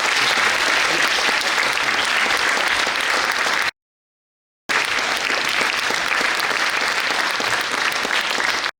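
Audience applauding, a dense steady clapping. The sound cuts off abruptly to silence for about a second just under four seconds in, then the applause resumes and cuts out again near the end.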